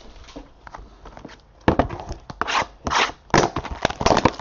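Trading cards and their packaging being handled by hand: a run of quick, irregular rustles and scrapes that starts about two seconds in.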